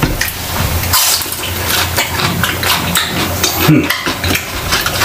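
Close-miked wet squishing and scraping as a piece of fried food is dipped and swirled in sauce in a small plastic cup, with small clicks and rubbing of the cup throughout.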